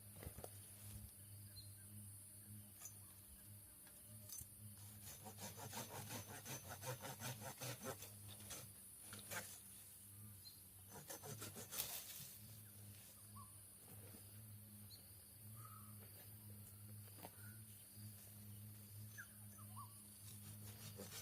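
Near silence: a faint steady hum, with soft rustling and scratching in the middle and a few faint short chirps.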